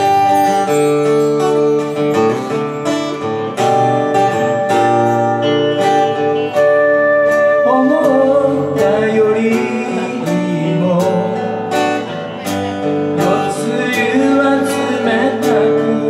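Live band playing a folk-rock song on acoustic guitar, electric guitar, bass and drums. A man's voice comes in singing about halfway through.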